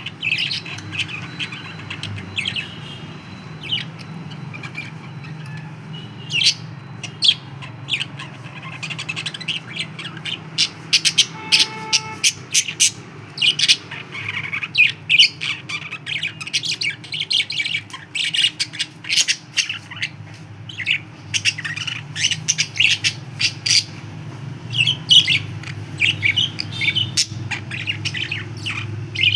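Pet budgerigars chattering and squawking: a busy stream of short, sharp chirps and calls, over a steady low hum.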